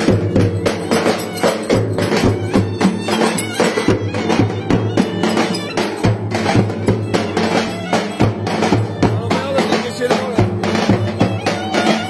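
Turkish davul, a large double-headed drum, beaten with sticks in a quick, steady dance rhythm, with a clarinet playing a Turkish folk melody over it.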